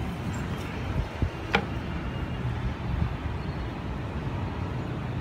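Steady low background rumble outdoors, with one sharp click about a second and a half in.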